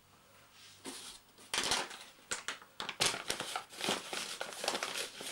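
Irregular crackling and rustling from hands working sticky shortcrust pastry dough in a glass bowl and from a paper flour bag being moved, starting about a second in.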